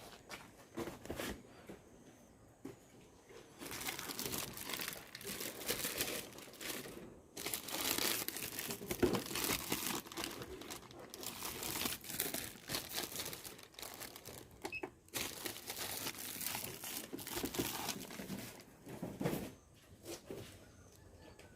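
Packing material being handled, crinkling and rustling in dense, irregular bursts. It is fainter for the first few seconds and again near the end.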